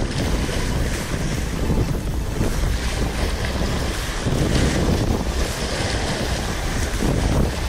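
Steady wind blowing across the microphone, heaviest in the low range, over the wash of surf.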